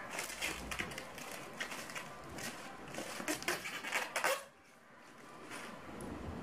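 Crinkling and rustling of the white wrapping as a lightstick is unwrapped by hand, many small crackles that stop about four and a half seconds in.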